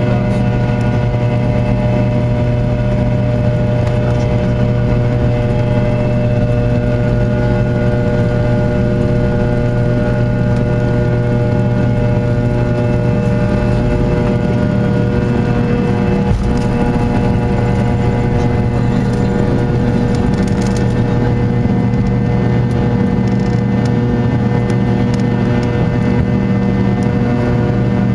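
Fokker 100's rear-mounted Rolls-Royce Tay turbofans heard inside the cabin: a loud, steady drone with several held tones that stay at one pitch.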